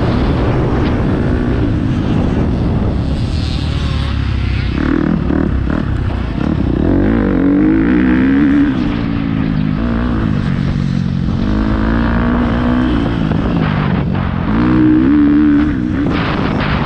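KTM 250 SX-F motocross bike's four-stroke single-cylinder engine running hard, its pitch rising and falling several times as the throttle is opened and closed, loudest near the end.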